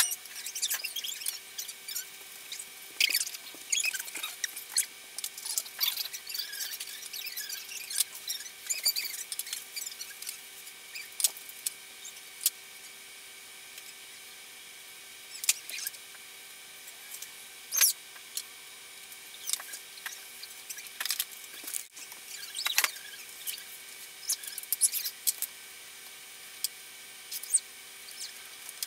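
Scattered light clicks, taps and rustles of hands handling cut lengths of NeoPixel LED strip and setting them down on the letter panels, over a faint steady hum.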